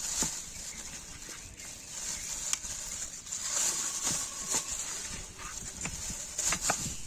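Thin plastic bags crinkling and rustling as handfuls of cut raw chicken are pushed into them, with scattered soft taps and clicks.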